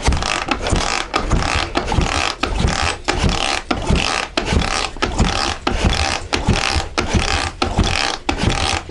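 Dnepr K-650 boxer-twin motorcycle engine being turned over by foot on the kickstarter again and again: a steady run of rhythmic mechanical knocks and clatter, about two to three a second. The cranking is too slow to build enough oil pressure to switch the oil-pressure sensor.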